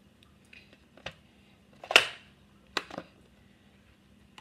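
Hard plastic clicks and knocks from a box of pipette tips being handled: the rack's hinged lid opened and the box lifted and moved. A few separate sharp clicks, the loudest near the middle, a quick pair just before three seconds and more near the end.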